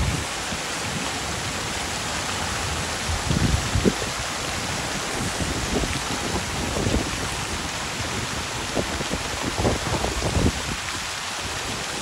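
Water jets of a plaza fountain falling and splashing into the basin: a steady, rain-like hiss. A few short low thumps come through about three to four seconds in and again around nine to ten seconds.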